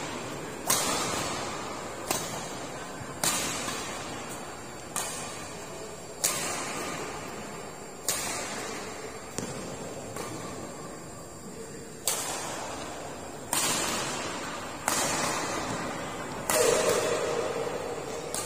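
Badminton rackets hitting a shuttlecock in a rally: sharp hits about every one to one and a half seconds, each ringing on in the echo of a large hall. The loudest hit comes near the end.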